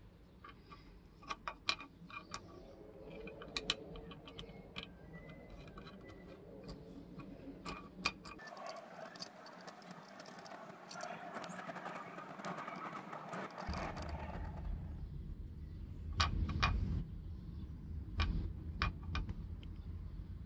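Light metallic clicks and taps as small steel screws are picked up and set into nuts in a 3D-printed plastic hub, with a few seconds of rubbing and scraping in the middle while a screw is turned in by hand.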